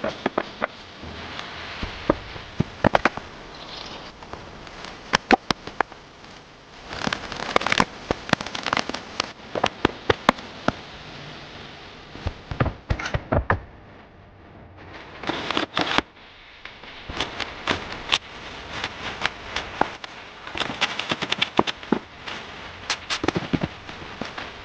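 Many irregular sharp cracks and snaps, some in dense clusters, over a steady low hiss, with a quieter lull a little past the middle.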